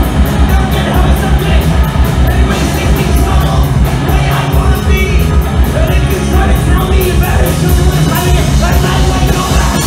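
A three-piece punk rock band playing live and loud: electric guitar, bass guitar and a drum kit with steadily driving cymbals, and the singer-guitarist singing and shouting into the microphone.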